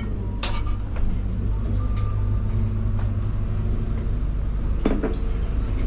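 Boat engine running steadily, a low rumble, with a few sharp clicks and knocks on board.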